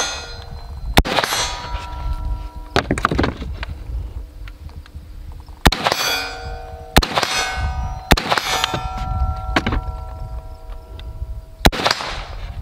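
H&K SL8-1 semi-automatic rifle fired about half a dozen times, a second or several apart. Each shot is followed by the clang of a hit steel target, ringing on after the strike.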